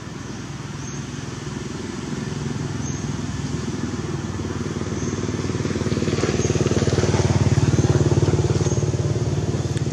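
A motor vehicle's engine running with a steady low hum that grows louder to a peak about eight seconds in, then eases a little.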